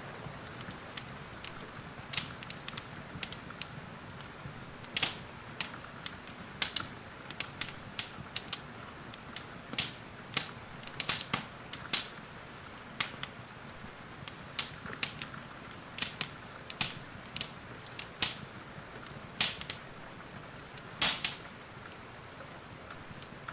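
Wood fire crackling, with irregular sharp pops and snaps, over a steady hiss of rain.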